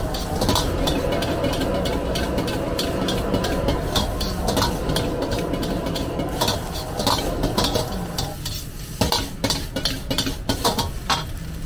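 Metal ladle scraping and clacking rapidly against a wok as cabbage is stir-fried over a gas wok burner, with sizzling and the burner's steady rush underneath. The burner's rush drops away about eight seconds in, and the ladle strokes go on.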